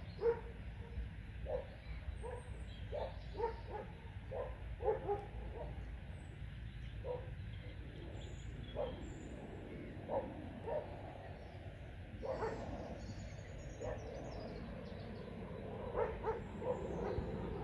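An animal calling in short, repeated calls at irregular intervals, several in quick succession near the end, with faint bird chirps above.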